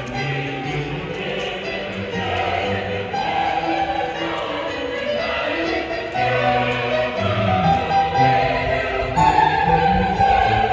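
A choir singing long held notes in several voice parts, typical of a rehearsal.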